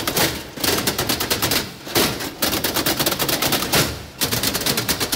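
Rapid hand drumming and rattling on a small metal cantilever toolbox, its fold-out trays clattering open and shut, in fast rolls of sharp metallic hits broken by brief pauses about two and four seconds in.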